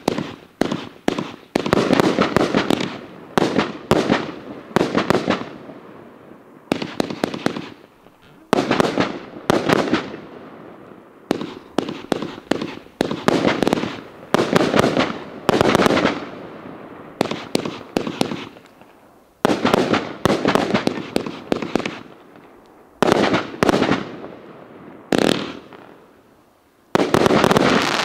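Multi-shot consumer fireworks cake firing shot after shot: clusters of sharp launch thumps and bursting bangs every couple of seconds, each fading with a hissing tail. There is a short lull near the end before a last loud volley.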